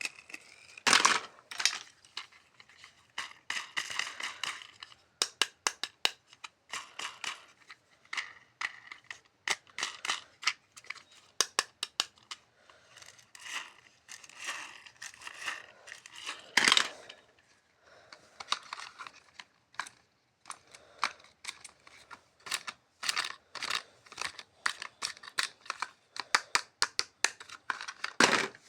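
Toy packaging being handled and opened: plastic and paper crinkling and tearing, with many short clicks and snips. There are louder knocks about a second in, near the middle and near the end.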